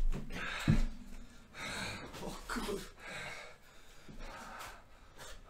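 A man breathing heavily in loud gasps, a breath about every second and a half, with a single thump about a second in.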